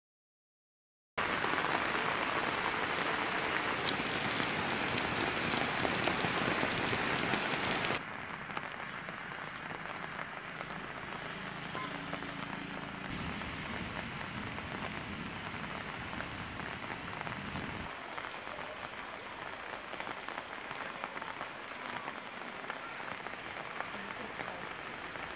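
Heavy rain, a steady hiss with no distinct strokes, starting abruptly about a second in. At about eight seconds it drops suddenly to a quieter, steady rain and water wash.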